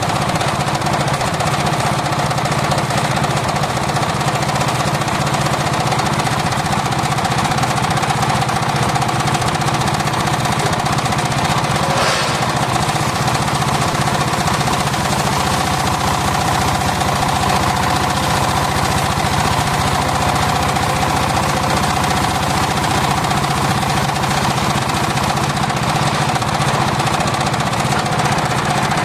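Homemade circular saw rig running steadily under power while sawing mahogany, a loud continuous machine noise, with one short click about twelve seconds in.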